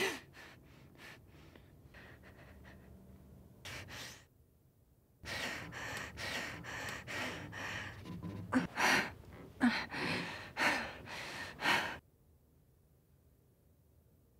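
A woman's ragged, laboured gasping breaths: a sharp gasp at the start, a short breath about four seconds in, then heavy gasping from about five to twelve seconds with several sharp catches of breath. These are the breaths of a stabbed woman dying.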